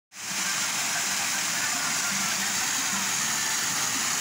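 Small hillside stream cascading down a rocky channel: a steady rush of falling water.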